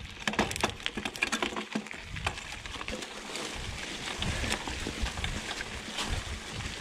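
Cannondale Scalpel mountain bike rolling over wet leaf litter and twigs on a forest track: a rustling of leaves under the tyres with many sharp crackles and snaps, and a low rumble that grows from about two seconds in.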